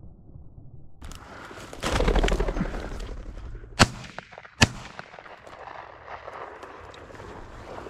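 Two shotgun shots, under a second apart, sharp and the loudest sounds here. They are preceded by a loud burst of rustling noise.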